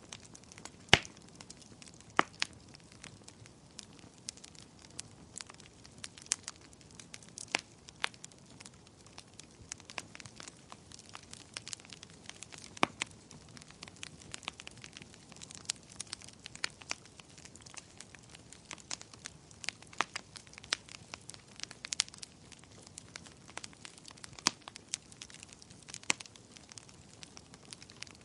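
Wood fire crackling, with irregular sharp pops and snaps over a soft low hiss, the loudest pops about one and two seconds in.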